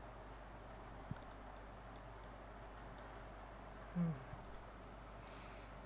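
Faint steady hiss of a video-call recording, with a single click about a second in and a brief low sound falling in pitch near four seconds.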